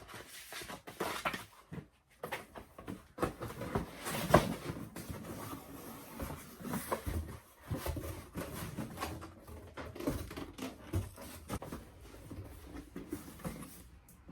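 Cardboard shoe box and paper packaging being handled: irregular rustling with scattered clicks and knocks, and one sharp knock about four seconds in.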